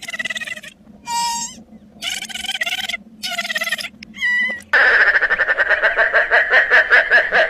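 A string of short, pitched animal-like calls, then from about five seconds in a long, loud trill of rapid pulses, presented as dinosaur voices.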